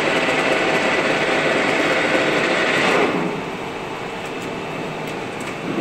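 Freshly overhauled 16K20 screw-cutting lathe running under power, a steady mechanical whir of its gearing and feed drive. It drops noticeably in level about three seconds in and picks up again near the end.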